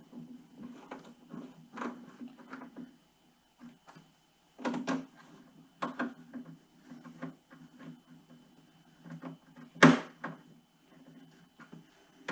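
Scattered clicks, taps and knocks of hand tools and small screws being worked into a saddlebag latch assembly, with the loudest single knock about ten seconds in, over a steady low hum.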